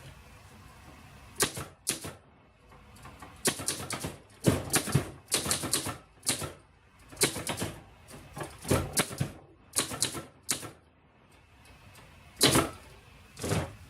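1931 Corona Four portable typewriter being typed on: the typebars clack against the platen in uneven runs of keystrokes with short pauses, and there is a longer pause near the end before a few last strokes. The platen is worn and due for replacement.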